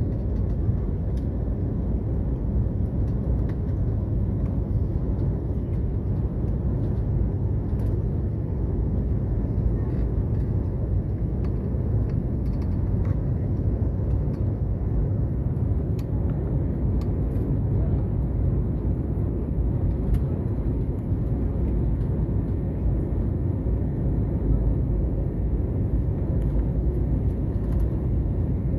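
Steady low rumble of jet engines and rushing air heard inside an airliner's cabin as the aircraft climbs out after take-off.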